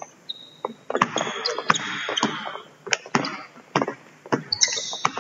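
Basketball dribbled hard on a hardwood gym floor, giving an irregular series of bounces, with sneakers squeaking sharply on the boards as the ball handler and his defender shuffle and cut.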